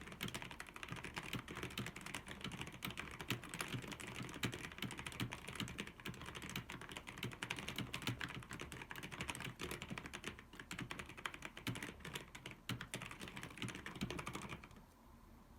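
Fast continuous typing on a mechanical keyboard with Outemu Brown tactile, non-clicky switches: a dense patter of key presses that stops shortly before the end.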